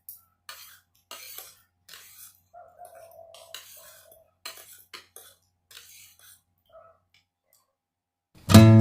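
Faint, irregular clinks and scrapes of cutlery on dishes during a meal. About eight and a half seconds in, loud strummed acoustic guitar music starts.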